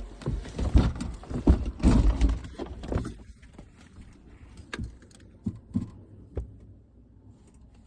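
Handling and movement noise: a quick run of knocks, low thumps and rustling over the first three seconds, then a few scattered clicks.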